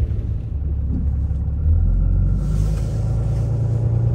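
Steady low road and engine drone inside a pickup's cab while driving, with a brief hiss partway through.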